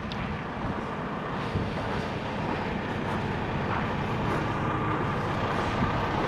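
Steady rumble of idling vehicle engines in stopped traffic, with a faint steady hum, growing slightly louder.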